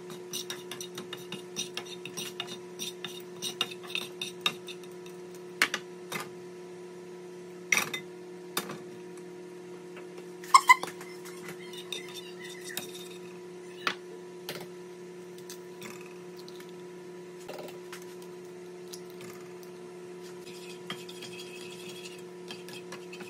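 Spatula scraping and clinking against a nonstick frying pan as butter is pushed around, with a few sharper knocks, the loudest about ten seconds in. A steady low hum runs underneath.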